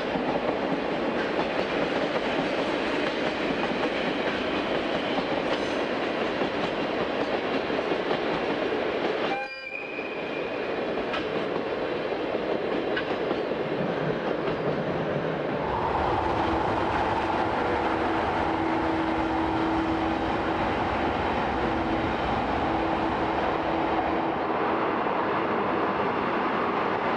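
Train running on track, a steady rumble with rail noise. The sound dips briefly about nine seconds in. From about sixteen seconds a deeper rumble joins, with a steady held tone.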